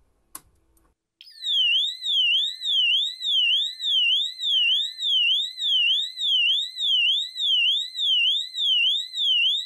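A key switch clicks, then about a second in a Wheelock AES-DL1 multi-tone fire alarm horn starts its siren tone: a very loud, shrill tone sweeping steadily up and down, about 1.4 sweeps a second. This is the tone the horn gives for a supervisory condition.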